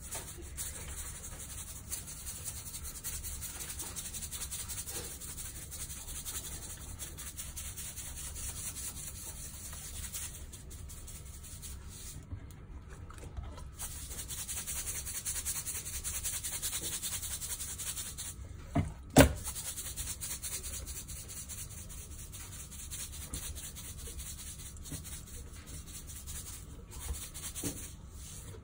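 Salt shaken from a canister and rubbed by hand over a raw sea mullet's skin: a steady gritty rubbing hiss with a few short breaks, and one sharp knock about two-thirds of the way through.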